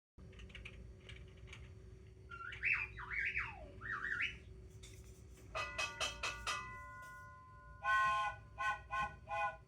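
A string of comedy sound effects: a few squawking calls that swoop up and down in pitch, then about five quick struck tones that ring on like a bell or chime, then four short horn-like honks near the end.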